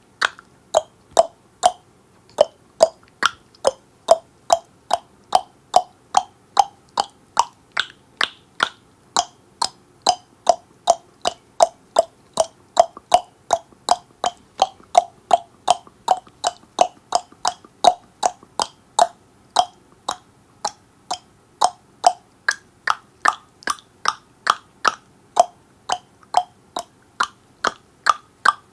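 A person clicking the tongue against the roof of the mouth over and over, about two to three hollow pops a second, with brief gaps near the start and about two-thirds of the way through.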